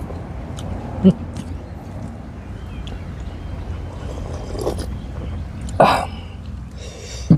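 Close-up eating sounds: chewing and mouth noises, with short sharp slurps as fish broth is sipped from a coconut-shell bowl, over a steady low rumble.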